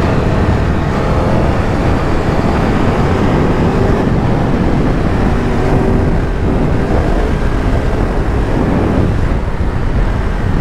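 Triumph Tiger 1200 Rally's three-cylinder engine running at speed on a gravel track, around 120 km/h, under a steady heavy rush of wind noise on the rider's microphone.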